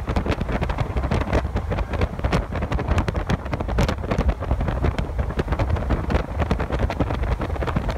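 Heavy wind buffeting on the microphone, a dense rumble with gusty crackle, over the engine of a small single-engine floatplane taking off and climbing away.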